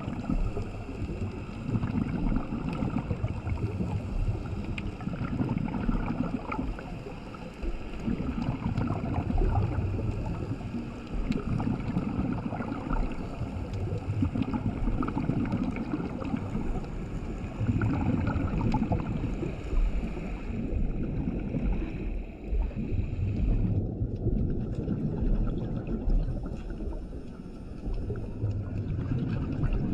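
Scuba diver breathing through a regulator underwater: exhaled bubbles gurgle out in low surges about every four to five seconds, with quieter stretches between breaths.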